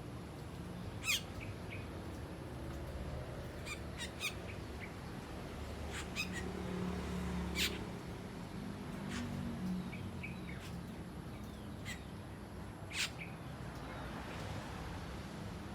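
Asian glossy starlings giving short, sharp calls at irregular intervals, about half a dozen in all, over a low background rumble.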